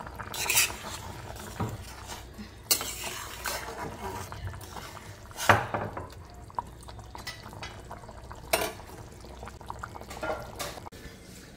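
A spatula stirring and scraping through a thin fish curry in a stainless steel pot, with irregular knocks against the pot's side; the sharpest knock comes about halfway through.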